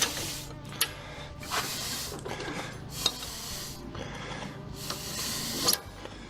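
Metal clinks and scraping as a tractor's three-point hitch lower arm and its pins are fitted by hand. Four sharp clinks, one near the start, then at about one, three and almost six seconds in, stand out over rubbing noise and a steady low hum.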